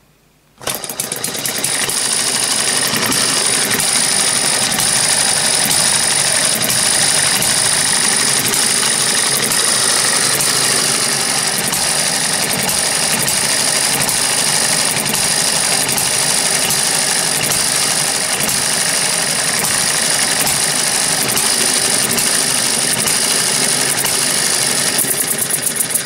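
Eachine ET1 model hit-and-miss engine catching suddenly about half a second in after the flywheel is spun by hand, then running steadily at speed with a fast, even mechanical rattle.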